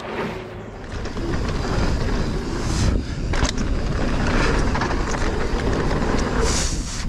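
Mountain bike rolling fast down dirt singletrack: steady tyre and wind noise buffeting the helmet or chest camera's microphone, with a few sharp clatters from the bike about three seconds in and again near the end.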